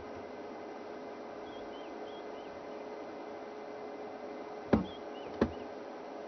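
Quiet outdoor bush ambience: a steady hiss with a faint hum under it and faint, high, short chirps recurring in the background. Two sharp clicks come a little over half a second apart near the end.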